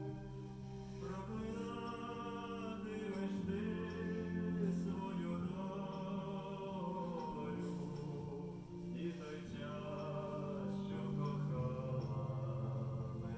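Background music: slow sustained vocal or choir-like notes over a steady low drone.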